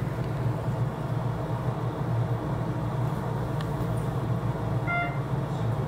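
Shonan Monorail 5000-series car standing at a station platform, its onboard equipment giving a steady low hum. A short electronic beep sounds about five seconds in.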